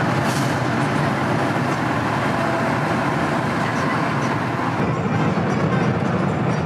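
Steady low rumble and hiss of a moving vehicle, heard from inside.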